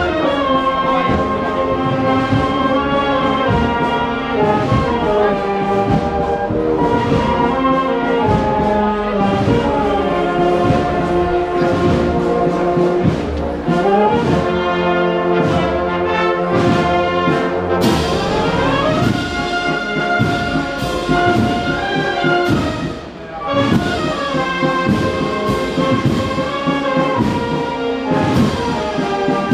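Brass band playing a Holy Week processional march: a brass melody and held chords over drum strokes.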